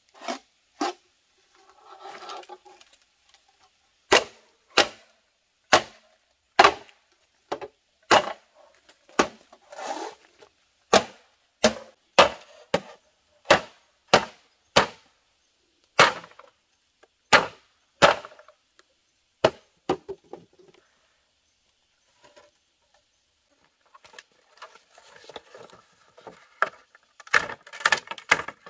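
Machete chopping green bamboo: a long run of sharp, separate chops, about one or two a second. Near the end, bamboo poles clatter against each other as they are handled.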